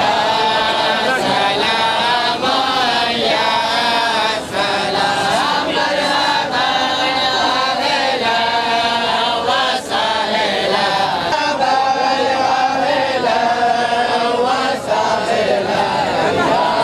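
Many men's voices chanting together in unison, a Sufi devotional chant sung phrase after phrase with only brief dips between phrases.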